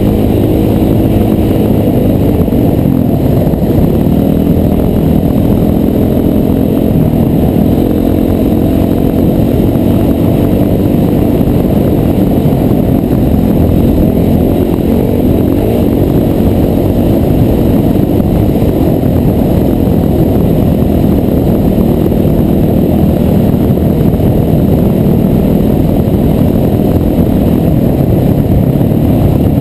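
Dirt bike engine running at a steady cruise, its note wavering slightly with the throttle, heard from the rider's helmet camera over a dense rush of wind and riding noise.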